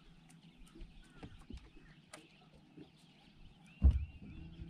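Quiet boat deck with faint scattered ticks during a lure retrieve, then a single loud thump about four seconds in. Just before the end a bass boat's bow trolling motor starts a steady low hum.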